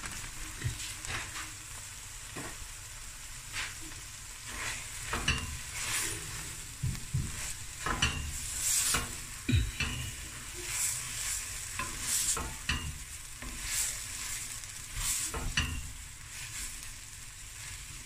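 Wooden spoon stirring and scraping rice through frying peas, corn and carrots in a large stainless steel pot, in irregular strokes about once a second over a steady sizzle.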